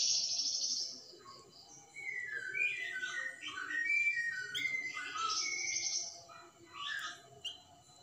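Caged flamboyan songbird singing. It opens with a high buzzy burst, then gives a run of varied whistled notes mixed with rapid high trills, and ends with a couple of short calls near the end.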